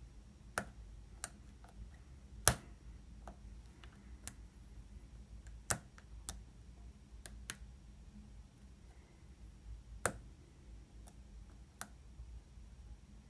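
Lock pick and tension wrench working the pins of a Master Lock bike lock's pin-tumbler cylinder: about eight sharp clicks at uneven intervals, the loudest about two and a half seconds in.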